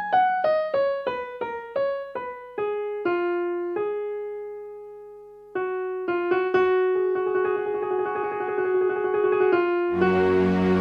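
Solo piano music: a descending run of single notes slows to one held note that fades away, then quick repeated notes pick up again. Low sustained tones join near the end.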